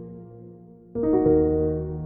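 Soft keyboard music: a held chord dies away, then a new chord is struck about a second in and rings on.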